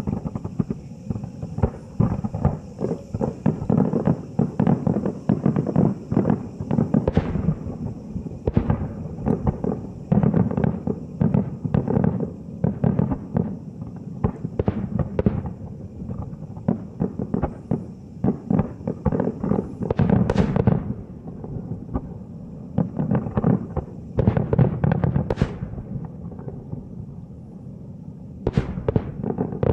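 Aerial firework shells bursting in a rapid-fire barrage, heard from about a kilometre away: dense, overlapping booms and crackles with no break, and a few louder single bursts in the second half.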